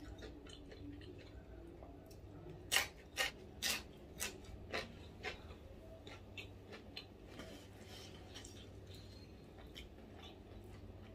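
Close-up chewing and crunching of food, with a run of about six sharp crunches roughly half a second apart starting about three seconds in, then softer chewing, over a low steady hum.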